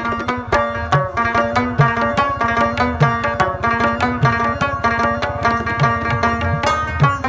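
Rubab plucked in fast runs of bright notes over hand drums keeping a beat, some of the drum's deep strokes bending up in pitch.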